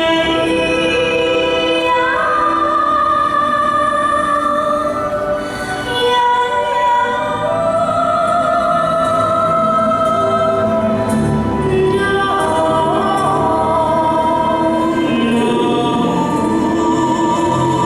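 Show music with a held, operatic-style singing voice over orchestral backing, the voice sustaining long notes and sliding up into new ones.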